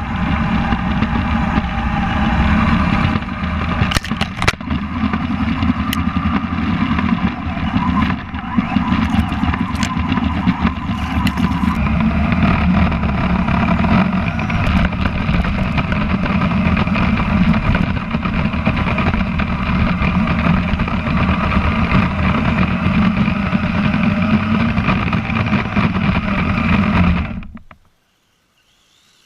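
Kyosho Blizzard FR radio-controlled tracked snow vehicle running, its motor and track drive heard close up from a camera mounted on board. The sound is steady and continuous, then cuts off suddenly near the end.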